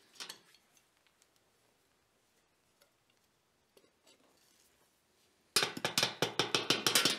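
Faint clinks of blacksmith tongs burying a forged steel knife blank in a bucket of hardwood ash, then, about five and a half seconds in, a quick run of loud scrapes as ash is swept over it with a wooden hammer handle. The blade is being buried in ash to cool slowly and anneal.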